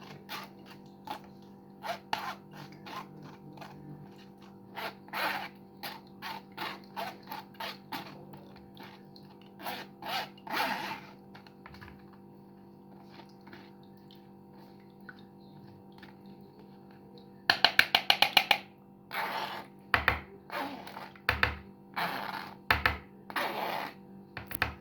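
Sugar being added to strained lemon juice and stirred in a bowl: scattered knocks and scrapes of a utensil against the bowl, a quick run of clicks about eighteen seconds in, then a string of louder stirring strokes.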